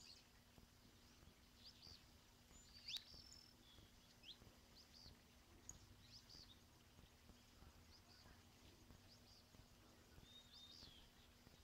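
Faint bird calls over near silence: short high chirps scattered through, with a few quick falling notes, the loudest about three seconds in. A faint steady low hum runs underneath.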